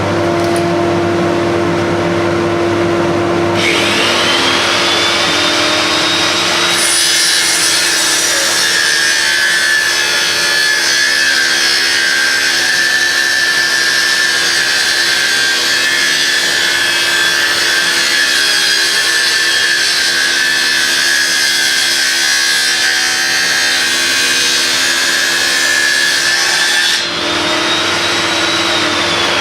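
Electric power saw running continuously, cutting pallet-wood boards to length. Its steady motor whine changes with the load about four seconds in and again near the end.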